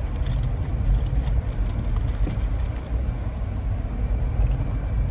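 Steady low rumble of a car driving, heard from inside the cabin, with a few faint ticks over it.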